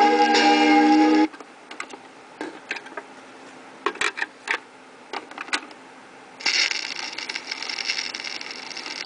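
A record playing on a portable record player cuts off suddenly about a second in as the tonearm is lifted. Scattered small clicks and knocks follow as the tonearm and record are handled. Past the middle comes the steady hiss and crackle of the stylus set back down in the groove.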